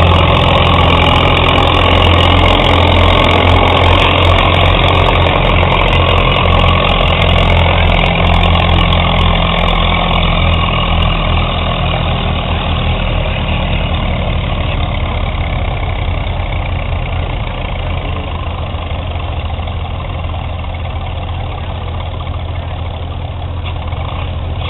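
Farmall tractor engine running steadily under load as it drags a weight-transfer sled down a pulling track, gradually growing fainter as it moves away.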